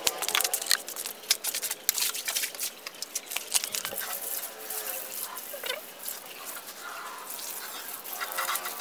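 Water from a garden hose splashing and spattering irregularly onto the floor of an empty concrete-bottomed tank, heard as scattered clicks and drips over a light hiss. A brief whining animal call comes near the end.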